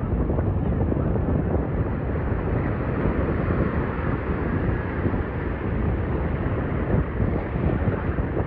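Wind rumbling steadily on the microphone over the wash of ocean surf.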